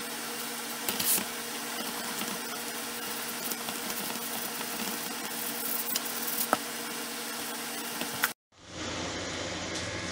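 Steady background hum and hiss with a few light taps. It drops out for a moment about eight seconds in, then comes back duller.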